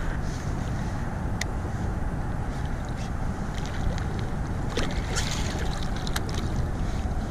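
Wind buffeting the microphone on a kayak out on open water, a steady low rumble with water noise. A sharp click comes about a second and a half in, and a few more short clicks and splashy bursts follow around five to six seconds in.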